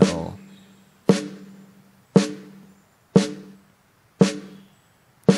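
Recorded snare drum playing on a loop through a compressor, six hits about a second apart. Each hit leaves a pitched ring that fades away: the overring that the noise gate is being set to cut.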